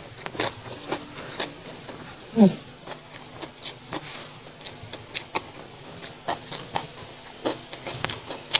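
Close-up eating sounds: chewing with irregular sharp, crisp clicks and wet mouth smacks. There is a short falling hum from the eater about two and a half seconds in.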